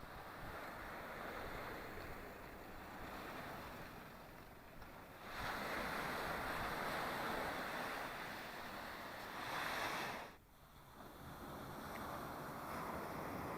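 Black Sea surf washing onto the shore, a rushing hiss that swells and fades with the waves. A bigger wave builds about five seconds in and runs for some five seconds, then drops away suddenly before the next wash builds up.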